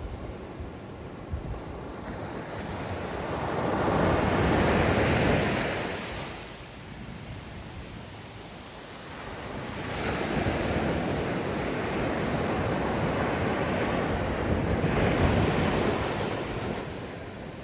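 Ocean surf breaking and washing up the beach in two surges: one swelling about four seconds in and fading by six, and a longer one from about ten to sixteen seconds. Wind rumbles on the microphone underneath.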